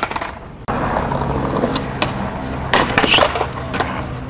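Skateboard clattering on brick pavers after a bail, with a cluster of sharp knocks about three seconds in, over a steady low hum.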